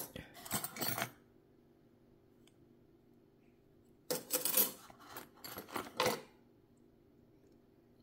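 Small metal sewing machine attachments clinking and rattling together as they are handled in their box. The clinking comes in two bursts, the first right at the start and the second from about four to six seconds in.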